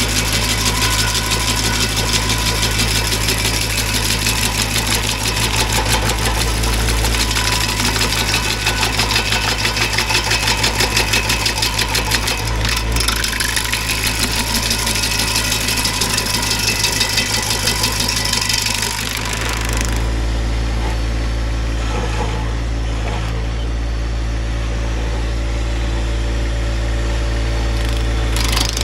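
Tractor engine driving a PTO stump grinder's 24-inch carbide-toothed wheel as it chews into a stump, a dense, loud grinding hiss of wood chips over the engine. About 19 seconds in the cutting stops and the engine and spinning wheel run on steadily without load.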